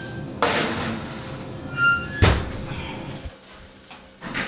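Light background music, with a metal scrape about half a second in and one loud heavy thunk about two seconds in, the oven door being shut on the baking pan.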